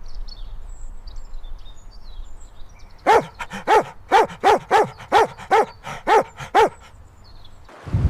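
A dog barking, about ten short barks in a quick, even series starting about three seconds in.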